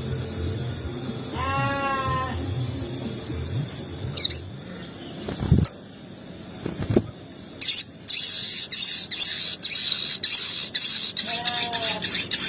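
Sogon bird calls: a wavering pitched call early on, then a few sharp separate chirps from about four seconds in, breaking into loud, fast, harsh chattering at about eight seconds, the excited 'cuit cuit' calling used to provoke other sogon birds into song.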